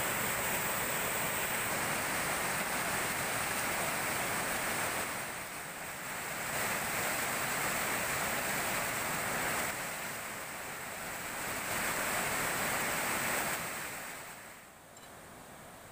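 Fast river water rushing and churning over a low weir: a steady noise of white water that drops away sharply near the end.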